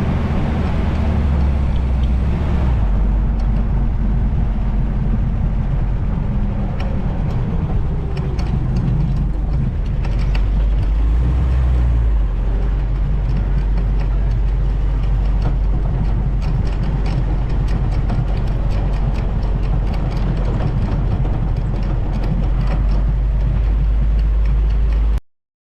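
Vintage Willys Jeep engine running on the move, a steady low rumble with road and wind noise, picked up by a GoPro in a foam wind buffer. The engine note shifts a few times along the way. The sound cuts off suddenly near the end.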